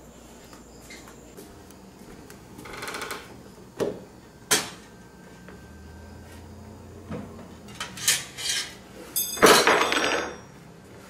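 Dishes and cutlery clinking on a metal serving tray as it is carried and set down, with scattered knocks. Near the end a metal spoon falls to the wooden floor with a ringing clatter, the loudest sound here.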